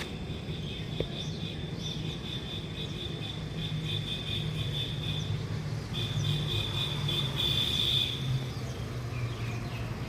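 Insects chirring steadily at a high pitch over a low steady hum, with a brief break in the chirring about six seconds in.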